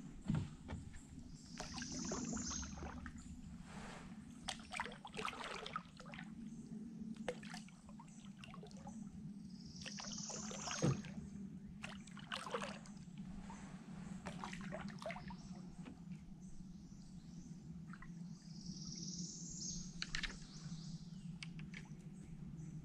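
Light water sounds and scattered small knocks of gear and paddle against a kayak hull, over a steady low hum. A bird gives a high call three times, about eight seconds apart.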